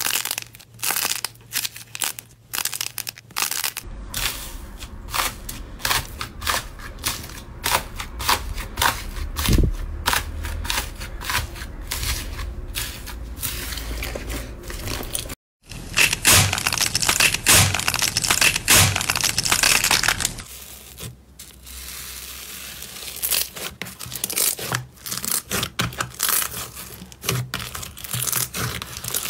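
Slime and clay being squeezed and kneaded by hand, giving rapid crackling clicks and pops. After a short break midway there is a denser, crunchier stretch, then sparser clicks again.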